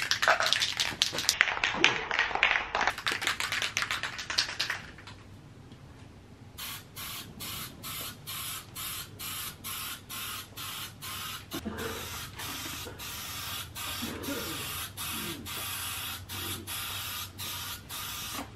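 Aerosol primer can being sprayed onto the wheels in short hissing bursts, about two a second. The first five seconds hold a louder, denser rattling.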